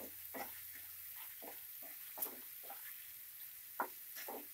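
A spatula stirring and scraping prawns around a non-stick frying pan in a quick, irregular run of short scrapes, over a faint steady sizzle of the prawns frying.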